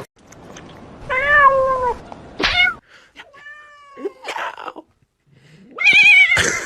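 A cat meowing four times. The first call is long and drops in pitch at its end, the second is short, the third is higher and steady, and the last wavers.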